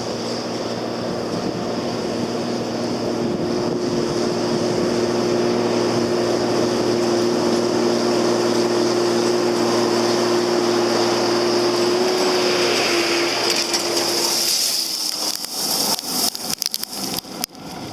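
Tractor engine running steadily with a constant hum and a high whine. About fourteen seconds in the hum dies away, and a run of irregular clicks and knocks follows.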